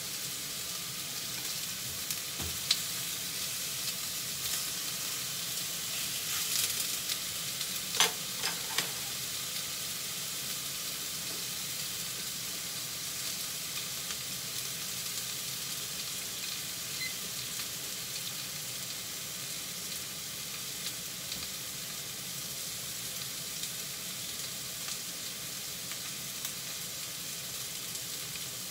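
Chunks of pork cartilage searing in a frying pan with a steady sizzle, being browned on both sides. A few sharp knocks in the first nine seconds, the loudest about eight seconds in.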